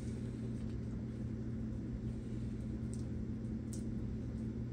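Steady low electrical hum, like an appliance motor, with two faint clicks about three seconds in.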